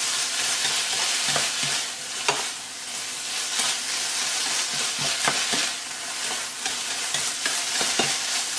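Diced eggplant and tomato sizzling in oil in a frying pan as a spatula stirs them around, with scattered clicks and scrapes of the spatula against the pan.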